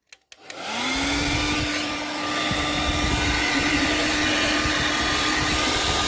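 Hair dryer switched on at its high setting: a click, then its motor whine rises to speed within about a second and it blows with a steady, loud rush of air.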